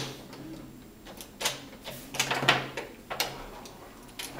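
Toy pieces knocking and clattering against a wooden toy train table and its track: a handful of separate knocks, a few of them close together about halfway through.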